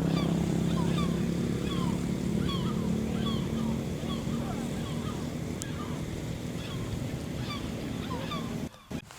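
Small birds chirping over and over in short falling notes, over a steady hiss of rain. A vehicle engine's low hum fades away over the first few seconds, and the sound drops out briefly near the end.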